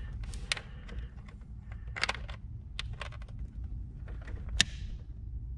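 Scattered clicks and light metallic taps of needle-nose pliers handling a hose clamp on a rubber hose, with the sharpest click about four and a half seconds in, over a low steady hum.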